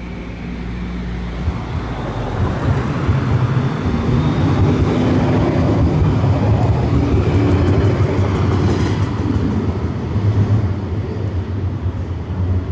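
Tram passing close by: a rumble of wheels on the rails that builds over the first few seconds, stays loud, then eases off. A brief run of sharp clicks about nine seconds in.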